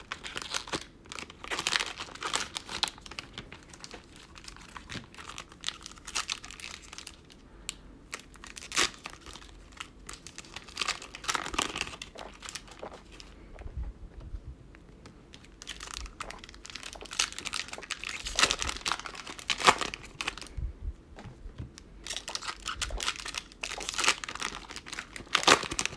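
Plastic cello wrappers and a foil bonus pack of 2020 Mosaic football cards crinkling and tearing as they are handled and ripped open, in irregular spells with a quieter stretch about halfway through.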